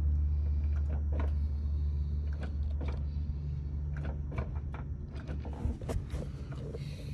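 Cessna 150 toe-brake pedal pumped repeatedly by foot: a series of light clicks and knocks about every half second, over a steady low rumble. The pedal is being pumped to push fluid through the repaired brake line and check it for leaks.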